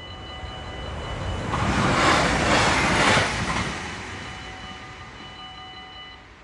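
A train passes a level crossing: its rush swells to a peak about two seconds in and fades after about three and a half seconds. Under it, the crossing's warning bell rings steadily and stops shortly before the end as the crossing clears.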